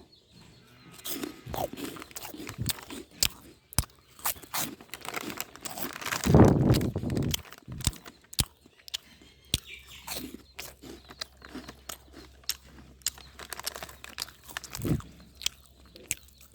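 Irregular crunching and sharp clicks, with a louder, denser crunch about six to seven seconds in.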